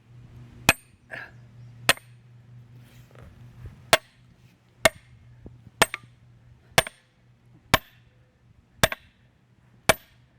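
Hammer striking a duckbill lock-opening tool driven into a padlock, nine sharp metallic blows about a second apart with a short pause after the second. Each blow drives the wedge deeper to force the shackle's locking mechanism open.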